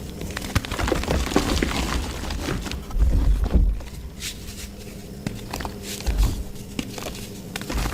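Mud being crushed and squeezed by hand: irregular crackling and sharp clicks, with heavier low thuds about three seconds in and again near six seconds.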